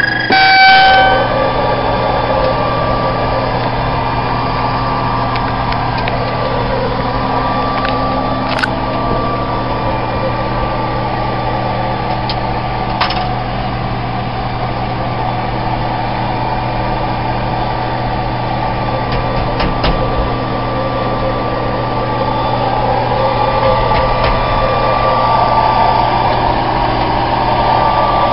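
Steady electrical hum and whine with several held tones from Concorde G-BOAC's aircraft systems, just brought to life on ground power. A few faint clicks come around the middle, and the hum swells a little near the end.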